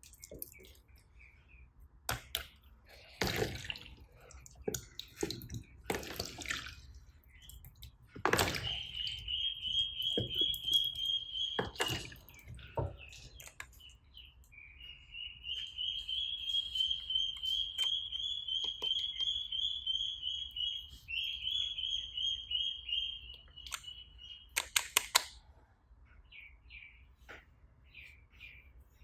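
Slime being handled, with sticky clicks and pops. Behind them a high, rapid chirping trill runs for two long stretches.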